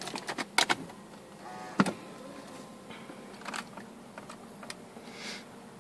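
BMW E36 328i ignition key clicking as it is turned, with a short electric whirr about a second and a half in as the ignition comes on. Scattered clicks follow as the on-board computer buttons are pressed, with the engine not yet running.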